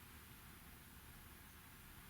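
Near silence: faint, steady room tone and hiss.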